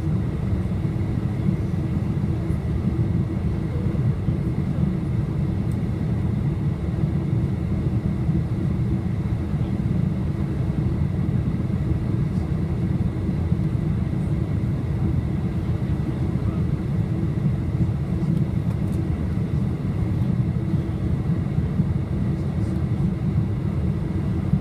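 Steady airliner cabin noise on approach: a low, even rumble of engines and rushing air, with a faint steady hum above it.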